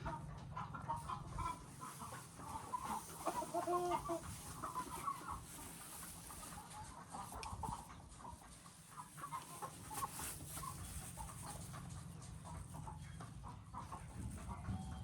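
Chickens clucking: many short, overlapping clucks throughout, with one clearer drawn-out call about four seconds in, over a steady low rumble.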